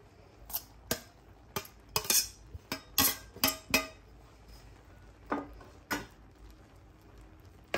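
Metal spoon clinking and scraping against a steel serving bowl while cooked keema is scooped out. A quick run of about ten sharp clinks comes in the first four seconds, then a couple more spaced out, and one last near the end.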